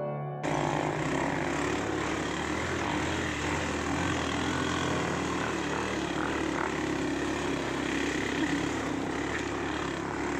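Piano music cuts off about half a second in. A motorcycle engine then runs steadily as the bike rides along a rough dirt track.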